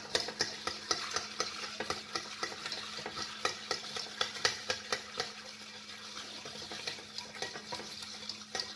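Long bar spoon stirring crushed ice in a glass carafe: a steady run of clinks and crunching as the spoon works through the ice against the glass, lifting the settled brown sugar from the bottom. A faint steady hum sits underneath.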